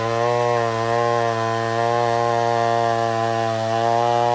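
McCulloch 797 chainsaw, a big single-cylinder two-stroke, held at full throttle while its chain cuts through a large log. It makes a loud, steady drone that stays at one pitch throughout.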